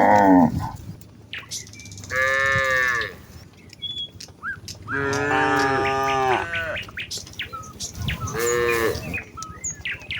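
Cows in a walking herd mooing: the end of one call at the very start, then three long moos, each about one to one and a half seconds, at different pitches, with short clicks between them.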